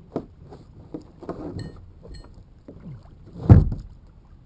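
Gear being handled in a kayak: a few light knocks and clunks, then one loud thump about three and a half seconds in.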